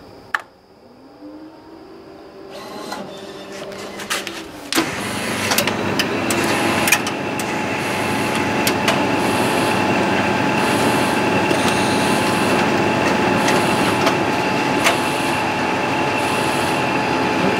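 Large photocopier, running with its front covers off, starting a copy job. A rising whine builds as it starts up, then after a clunk about five seconds in the machine runs with a steady mechanical whir and hum, broken by occasional clicks.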